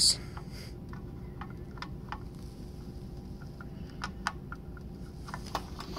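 Scattered light clicks and scrapes of a small screwdriver tip working at a hard-to-reach screw in a Macintosh Classic II's metal chassis, with a sharper click right at the start, over a steady background hum.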